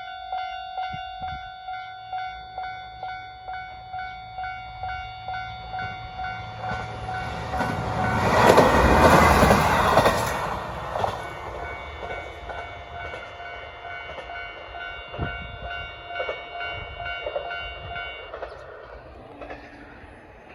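Japanese level-crossing warning bell ringing in a steady repeating ding while a diesel train passes over the crossing. The train's wheels and engine swell to their loudest about eight to ten seconds in and then fade. The bell stops near the end.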